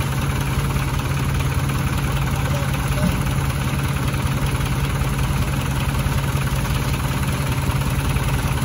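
Diesel engines of two tractors, a Sonalika DI 55 and a Farmtrac 60, running steadily at an even pitch while the tractors pull against each other in a tug-of-war.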